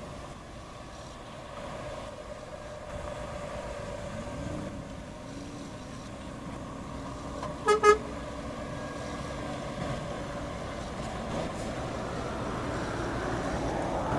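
Four-axle Scania tractor unit driving on a dirt road with its diesel engine running steadily, the engine note rising about four seconds in. Two short horn toots about eight seconds in are the loudest sound. Engine and tyre noise grow louder near the end as the truck comes closer.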